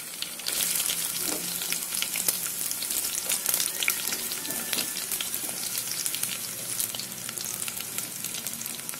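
Finely chopped onion tipped into hot sesame oil in a clay pot, which bursts into loud sizzling and crackling about half a second in. The sizzle then eases gradually as the onion starts to fry.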